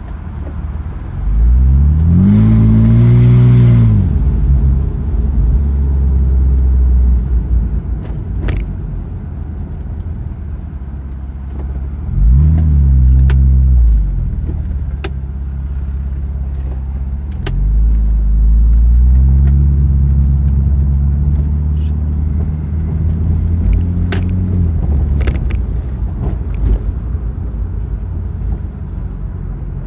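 A car's engine heard from inside the cabin while driving, its pitch rising and then falling as the car speeds up and eases off, three times: near the start, about halfway, and for several seconds later on. Scattered light clicks and rattles are heard throughout.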